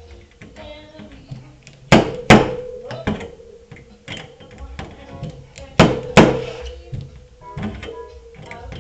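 Sharp metal strikes on a car body panel during dent pin pulling: two pairs of hard hits, the first about two seconds in and the second about six seconds in, with lighter knocks between.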